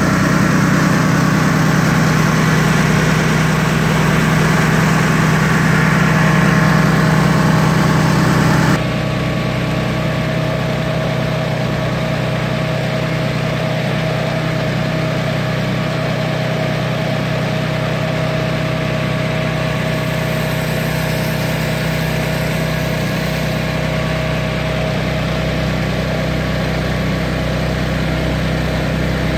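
Honda gas engine driving a Comet pump on a soft wash rig, running steadily. About nine seconds in, the sound drops suddenly to a quieter, steady run with a clear steady tone.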